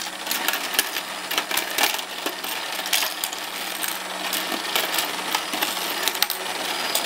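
Toy goldfish-scooping game with its small motor humming steadily. Plastic fish and a plastic scoop clatter over it in many quick light clicks as the fish are scooped out and dropped into plastic bowls.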